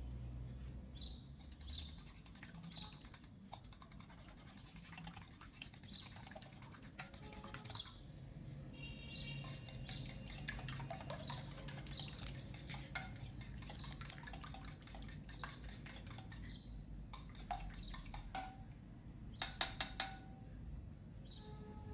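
Light kitchen handling noise: scattered clinks and taps of utensils and dishes, with three sharper taps near the end. Small birds chirp repeatedly in the background.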